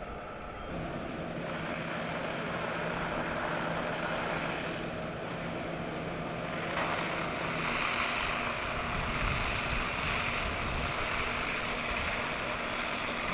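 Fire engine running with a steady hum under a broad rushing noise, which grows louder about seven seconds in.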